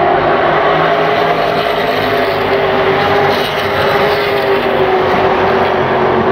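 Race car engines running at speed around an oval track, a loud steady drone of several engines at once with their pitch drifting only slightly.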